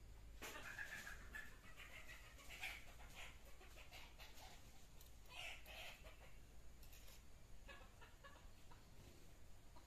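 Chickens clucking faintly, a string of short calls over the first six seconds, with a few light clicks near the end.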